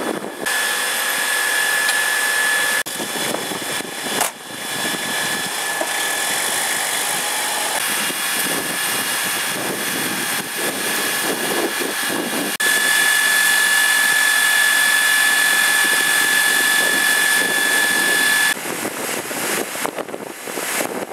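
Engine-driven fire-service machinery, most likely the fire engine's pump, running steadily: a constant high whine over a broad engine rush. The level changes abruptly a few times, jumping louder about two-thirds of the way through and dropping back near the end.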